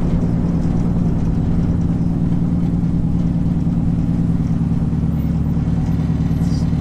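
1993 Honda Civic Si's engine and exhaust droning loudly at a steady cruise, with no revving up or down, heard from inside the car's stripped, gutted cabin.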